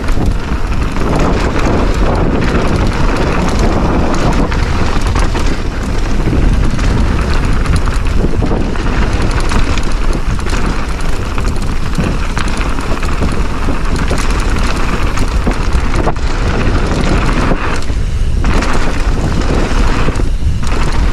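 A mountain bike descending a dirt bike-park trail: steady tyre rumble and rattle under heavy wind buffeting on the microphone, easing briefly twice near the end.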